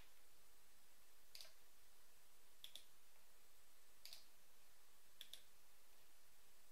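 Faint computer mouse-button clicks, a few single clicks and a couple of quick double clicks spaced a second or so apart, over a low steady hiss.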